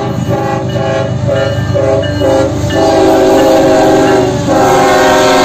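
Horn of a Kansas City Southern GE ES44AC diesel locomotive, No. 4695, sounding a chord of several tones as it leads a freight train past. The horn comes in short broken blasts at first, then a long, louder held blast from about halfway through, over the rumble of the locomotive and wheels.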